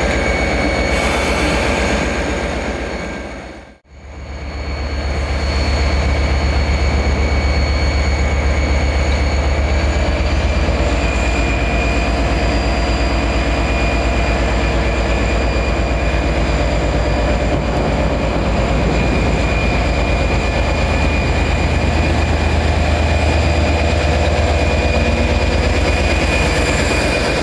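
A train running past at close range: a steady heavy rumble of wheels on rail with a steady high whine over it. About four seconds in the sound cuts out briefly, then the passing train carries on.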